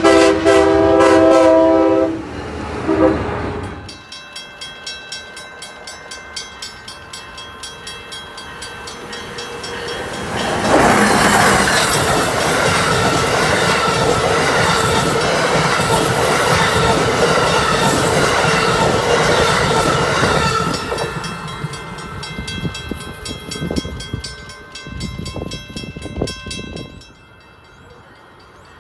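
An Amtrak train horn sounds one blast and then a short toot. An Amtrak Northeast Regional train then approaches and passes at speed. It is loudest for about ten seconds in the middle, with the wheels clicking over the rails, and the clicks thin out as the last cars go by.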